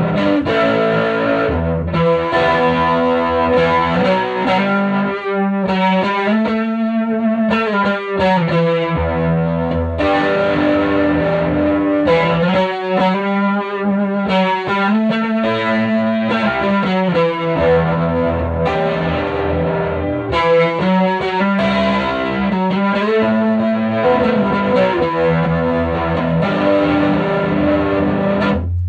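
Electric guitar played through a 1965 WEM Control ER15 valve amplifier head with push-pull EL84 output valves. It plays sustained chords and notes, with wavering, bent notes about a quarter and half way through, and cuts off abruptly at the end.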